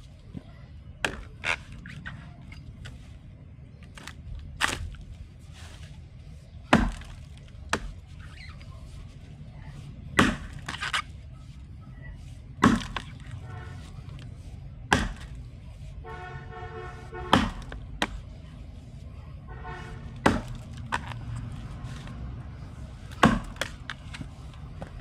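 Felling axe chopping into wood: a series of sharp heavy strikes every two to three seconds, with lighter knocks between them.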